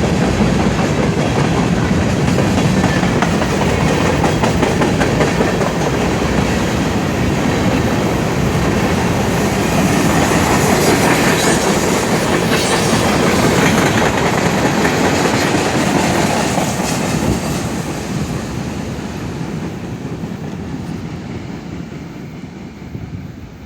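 Freight cars of a long Norfolk Southern manifest train rolling past at speed, wheels clicking over the rail joints. The noise fades steadily over the last several seconds.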